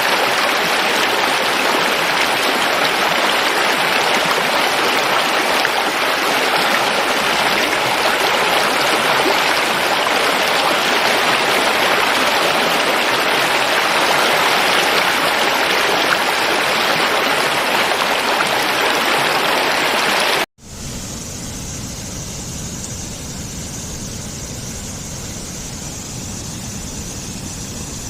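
Rushing water, a loud, steady hiss like a stream or waterfall. It cuts off about two-thirds of the way through, and after a brief gap a quieter, different steady rushing noise with more low rumble takes over.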